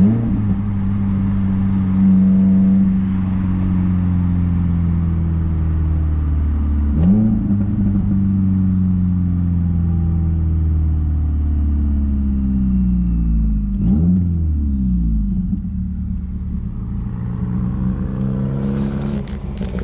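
Subaru WRX's turbocharged flat-four engine and open J-pipe exhaust, heard from inside the car while driving. The engine note jumps sharply three times, about seven seconds apart, and each time slowly drops back in pitch.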